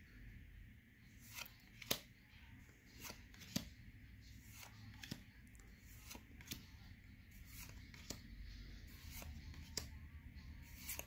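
Pokémon trading cards being flipped through one at a time. Each card is slid off the stack with a light, crisp snap of cardstock, irregularly, about one or two a second.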